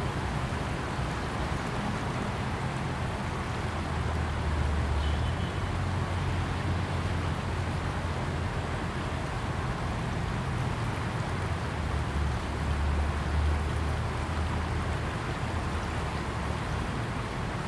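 Flowing river water, a steady rushing, with a low rumble underneath that swells about four seconds in and again about twelve seconds in.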